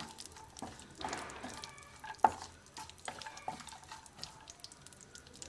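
Flat wooden spatula stirring chopped almonds, cashews and raisins as they roast in ghee in a nonstick wok: soft scraping and small clicks of the nuts, over a faint sizzle. One sharper knock comes a little past two seconds in.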